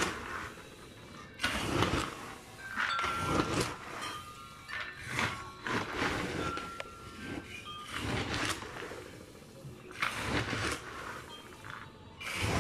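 Chile-coated peanuts rattling and scraping in a large plastic tub as they are stirred with a long spoon, in repeated strokes every second or two.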